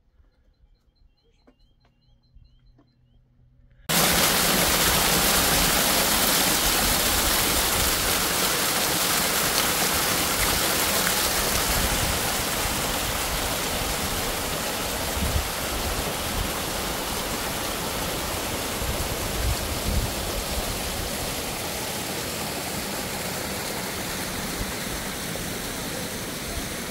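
Small mountain stream cascading over rocks: a loud, steady rush of water that cuts in suddenly about four seconds in, after a few faint chirps.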